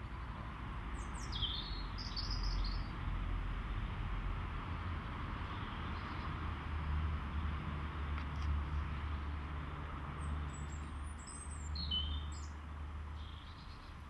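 Outdoor ambience with small birds chirping in two short flurries of high, falling notes, one about a second in and another around ten seconds in, over a steady low rumble.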